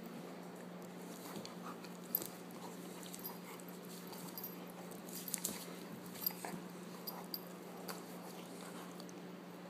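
A Weimaraner mouthing and play-biting a person's hand and arm: scattered short clicks and soft noises, the sharpest about two seconds in and several more between five and eight seconds, over a steady low hum.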